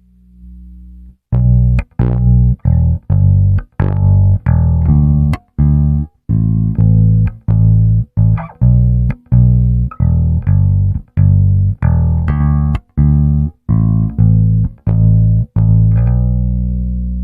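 Cort GB64JJ electric bass guitar played dry, with no effects or compression: a run of short, clipped low notes, each cut off sharply before the next, then a last note left to ring out near the end.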